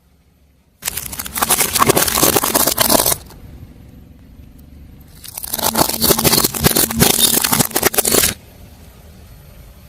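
A car tyre rolling over and crushing crunchy objects: two stretches of dense crackling and crunching, each two to three seconds long, with a low hum between them.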